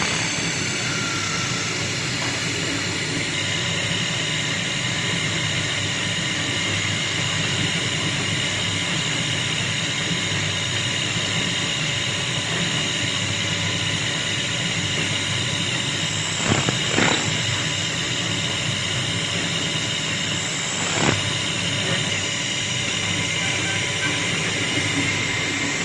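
Motor-driven wood lathe running steadily, a hand chisel cutting into a spinning wooden disc and throwing off shavings. A few short sharp knocks come about two-thirds of the way through and again a few seconds later.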